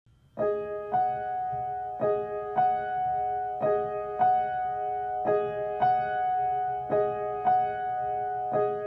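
Background music: a piano plays a repeating figure of two struck chords, one pair about every second and a half, starting about half a second in.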